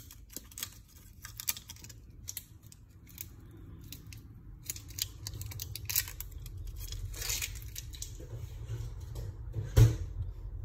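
Small candy wrappers being torn and peeled open by hand, with irregular crinkling and crackling of the wrapper. A louder knock comes near the end.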